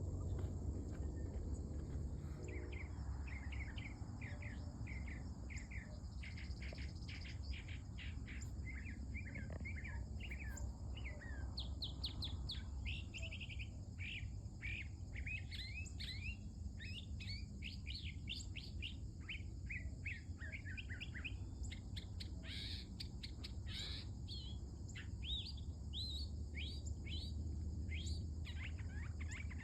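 Northern mockingbird singing a long, varied run of quick phrases, many notes repeated several times in rapid series, starting about two seconds in. Insects buzz steadily behind it.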